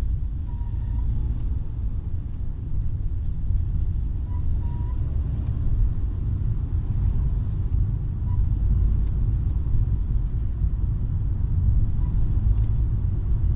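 Car running with a steady low rumble, and a few short high squeaks scattered through it: the brief squeak that has started to come when the accelerator pedal is pressed.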